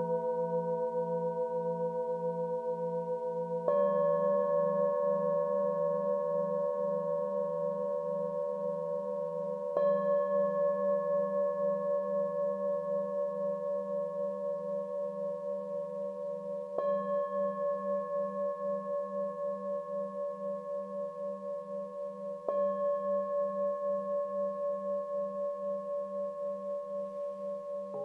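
Hammered metal singing bowls struck one at a time with a wooden mallet, four strikes roughly six seconds apart. Each strike adds new tones that ring on and overlap with the bowls still sounding, and the lowest hum wavers in a slow, steady pulse.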